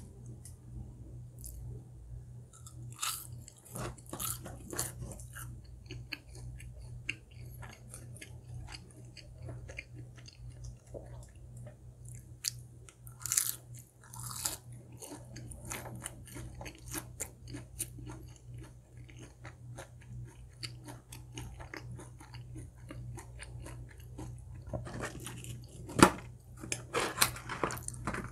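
Close-miked eating sounds: irregular biting, crunching and chewing of crispy fried food. One sharp, louder snap comes near the end.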